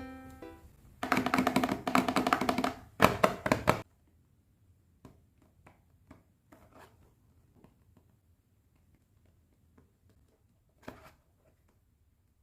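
A short instrumental music jingle with plucked, percussive notes that stops abruptly about four seconds in, followed by faint, scattered light taps and clicks of small objects being handled.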